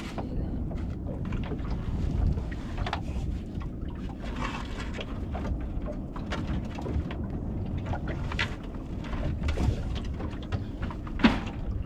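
Wind rumbling on the microphone aboard a small fishing boat, with scattered light knocks and rustles as a coil of rope is handled. A sharper knock comes near the end.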